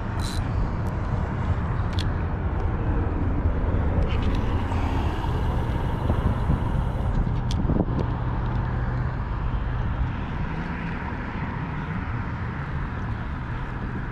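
Steady road traffic going by on the bridge, a continuous rumble of car and truck tyres and engines, with one vehicle passing louder about halfway through. A few light clicks sound over it.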